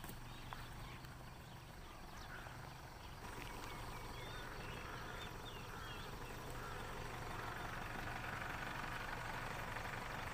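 A flock of birds calling overhead: many short chirps and squawks overlapping, growing denser and louder through the second half, over a steady low hum.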